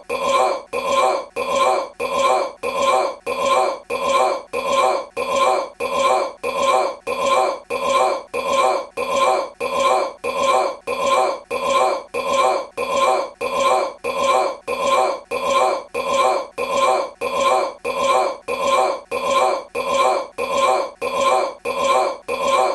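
A man's belch, the same short burp repeated over and over at an even pace of about two a second.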